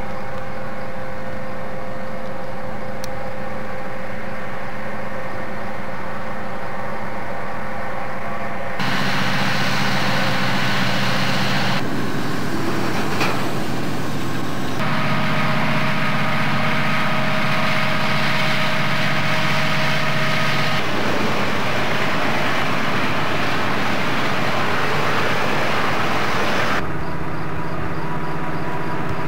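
Burlington Northern diesel freight locomotives running as they pass, a steady engine drone. The sound changes abruptly several times.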